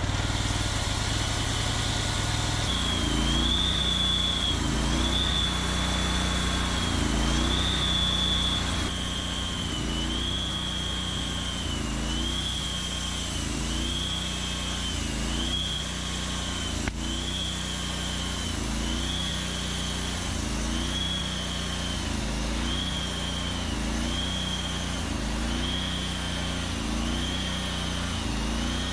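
Norwood Lumbermate Mark IV sawmill's engine, just started, running steadily, with a high whine that dips and recovers about once a second.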